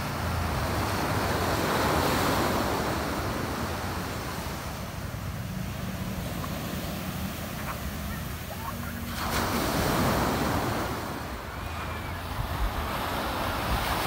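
Small sea waves breaking and washing up a sandy beach, swelling louder about two seconds in and again about ten seconds in.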